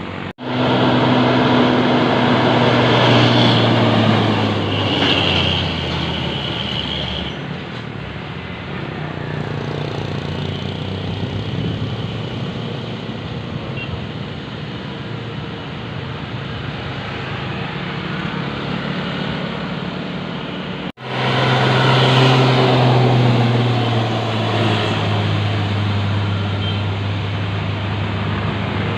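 Large tour buses driving past, a steady diesel engine drone whose pitch sinks slowly as each goes by. The sound drops out suddenly and briefly twice, then swells again with the next bus.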